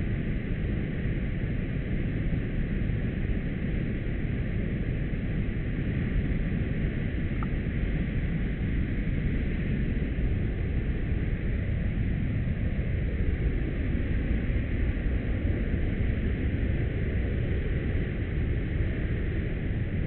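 Steady, even rush of a waterfall, with no distinct events.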